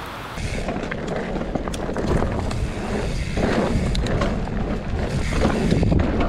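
Mountain bike riding down a dirt trail strewn with dry leaves: tyre noise and scattered rattles and clicks from the bike, under a steady rumble of wind on the chest-mounted camera's microphone. It starts about half a second in.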